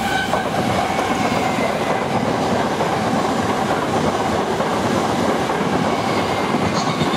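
Gatwick Express electric passenger train passing through the platform at speed without stopping, a loud, steady rush of wheels on rails.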